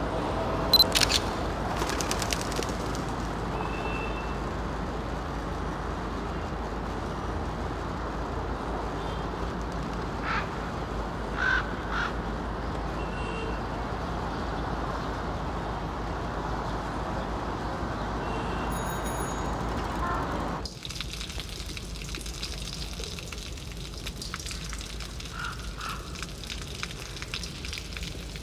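Outdoor city street ambience: a steady wash of distant traffic and background activity, with a few sharp clicks about a second in and brief high chirps now and then. About two-thirds of the way through it cuts abruptly to a quieter ambience.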